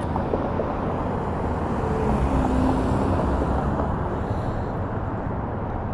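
Road traffic noise, a steady rush that swells slightly in the middle as a vehicle goes by.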